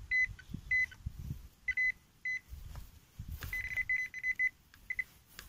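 Metal detector beeping on a single high-pitched tone as it passes over the hole. A few separate short beeps are followed, about three and a half seconds in, by a fast run of beeps, the sign that metal is still in the hole. Low scraping and thumps of digging in soil run under the beeps.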